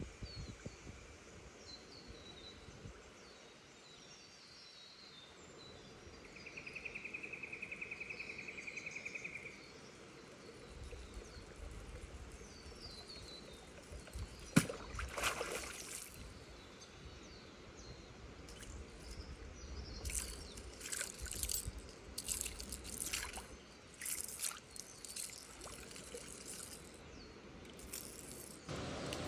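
Water splashing and gurgling at the surface in short bursts, loudest after a sharp click about halfway and in a run of splashes over the last third, with faint bird calls early on.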